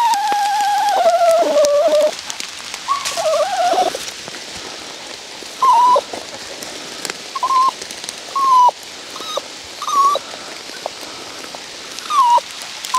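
A dog whining: one long whine that slowly falls in pitch, then a string of short high whines about a second apart.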